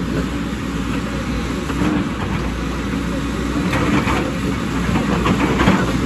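JCB tracked excavator's diesel engine running steadily while the hydraulic rock breaker works the rock face. Irregular knocks and clatter of rock come around the middle and again near the end.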